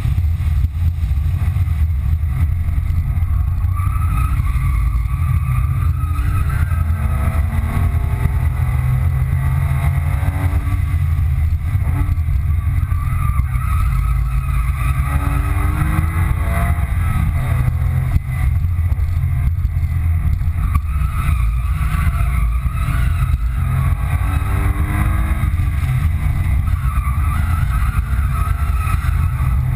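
2005 Porsche 997 Carrera 2's 3.6-litre flat-six heard from inside the cabin while being driven at speed, its note climbing again and again as it pulls through the revs and dropping back between, over a strong low rumble of road and wind noise.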